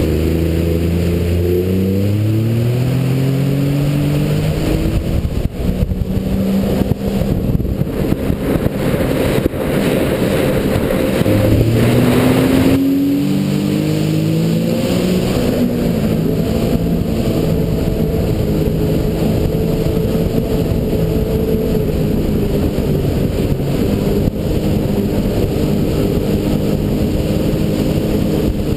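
Sea-Doo GTX iS jet ski engine accelerating hard, its pitch climbing over the first few seconds and again about eleven seconds in, then running steadily at high speed, under a constant rush of water and wind.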